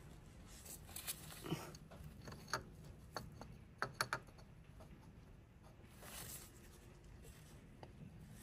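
Faint scattered clicks and light knocks of metal parts being handled, with a quick cluster about four seconds in, as a water pump is held against the engine block and its bolt is lined up and started by hand.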